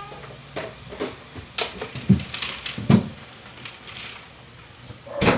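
Newborn puppies suckling at their mother's teats: irregular soft wet clicks and smacks. A few louder thumps come about two and three seconds in, and a sharp knock comes near the end.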